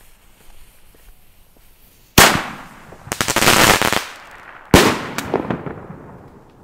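Toschpyros 30 mm bomb tube (single-shot firework mortar) firing: a sharp bang about two seconds in, a dense crackling for about a second, then a second sharp bang that dies away with a few scattered cracks. The second bang is the shell's heavy break charge.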